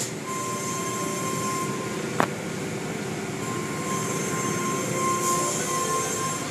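Automatic car wash machinery running: a steady wash of spraying water and cloth curtain strips sweeping over a foam-covered car, with a thin high whine that comes and goes and one sharp knock about two seconds in.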